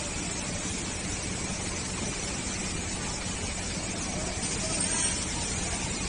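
Steady background hiss with a low, even hum underneath, and a faint high whine for about a second near the middle.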